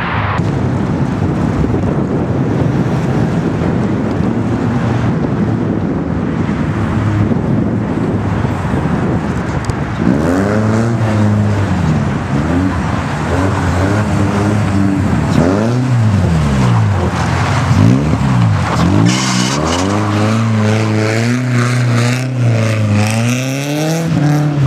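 BMW E30 318is rally car's four-cylinder engine being driven hard on ice. For the first ten seconds or so its note is steadier under a rushing noise; then the revs climb and drop over and over, every second or two, as the car slides. There is a hiss near the end.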